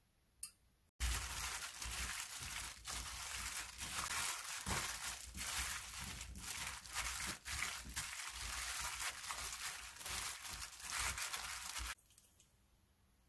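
A hand in a disposable plastic glove tosses diced Korean radish with chili seasoning in a metal pan. The glove crinkles densely and the wet cubes shuffle, starting abruptly about a second in and stopping shortly before the end.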